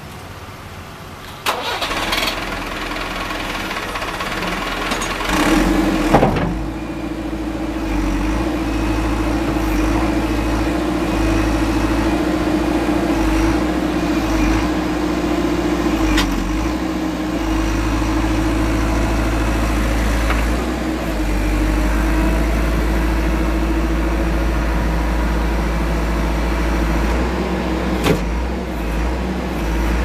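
The diesel engine of a 1997 JCB 217 backhoe loader starts up. It comes in suddenly about a second and a half in, with a loud burst around six seconds. After that it idles steadily with a constant hum.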